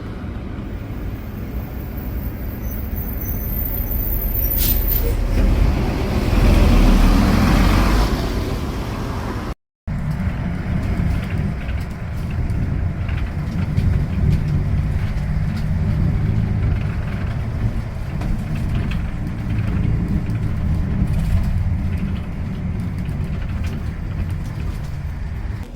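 A road vehicle running: a steady low rumble of engine and road noise that swells a few seconds in. About ten seconds in it cuts out for a moment and resumes.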